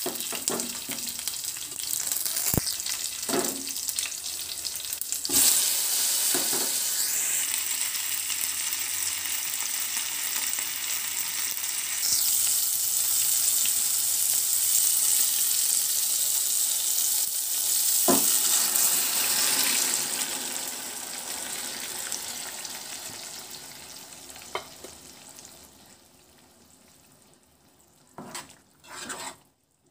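Hot oil sizzling in a pan as drumstick pieces fry with onions, curry leaves and dried red chillies, broken by a few sharp knocks against the pan. The sizzle grows louder about five seconds in and dies away over the last several seconds.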